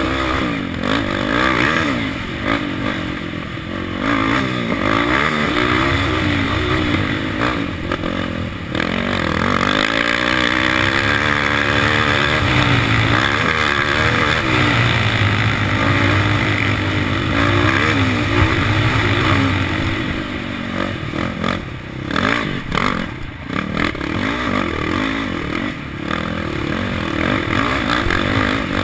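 KTM 525 XC quad's single-cylinder four-stroke engine revving hard under race throttle, its pitch rising and falling with gear changes and throttle chops. It holds a high, steady note through the middle, then turns choppy with on-off throttle near the end, with clatter from the machine over rough dirt.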